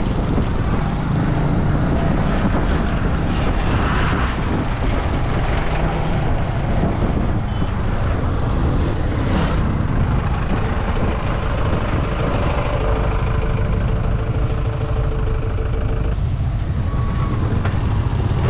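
Motorcycle engine and road noise while riding in close traffic among other motorbikes and trucks, a steady low rumble throughout. A steady tone from another vehicle is held for a few seconds past the middle.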